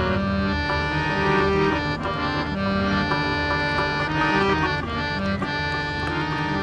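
Harmonium playing a sustained reedy melody in an instrumental interlude of a Pashto ghazal, with rabab and tabla accompanying.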